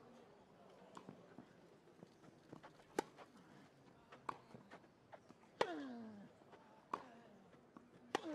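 Tennis rally on a grass court: the ball is struck back and forth with sharp racket hits about every 1.3 s, with fainter bounces in between. Two of the hits carry a short grunt from the player that falls in pitch.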